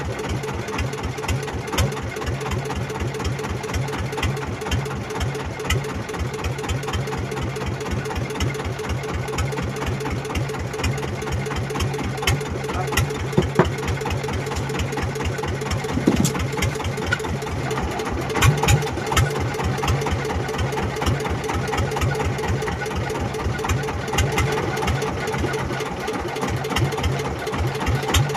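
The small fishing boat's engine idling steadily with a fast, even chugging beat. A few louder knocks from the middle onward.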